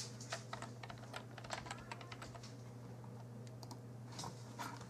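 Typing on a computer keyboard: a quick run of key taps as a short search word is entered, then two more clicks near the end. A faint steady low hum runs underneath.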